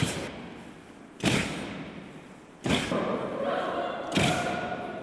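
Four heavy thuds about a second and a half apart, each fading slowly, with a faint held tone behind them from about halfway through.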